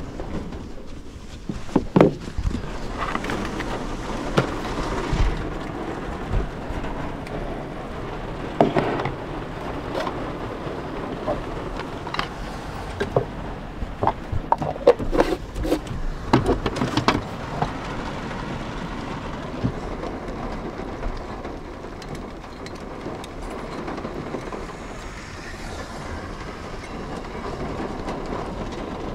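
Rain drumming steadily on a van's roof, with scattered clicks and knocks as plastic food containers, a cup and a small folding camping gas stove are handled and set down on a wooden tabletop. The knocks come thickest a little past the middle.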